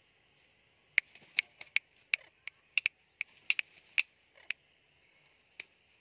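Indian ringneck parakeets giving a quick, irregular run of about fifteen short, sharp clicks, bunched between one and four and a half seconds in, over a steady high hiss.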